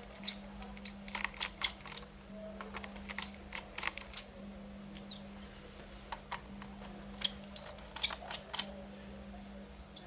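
Irregular small clicks and taps of a screwdriver and small screws as an HP Pavilion g6 laptop's case screws are taken out, over a faint steady hum.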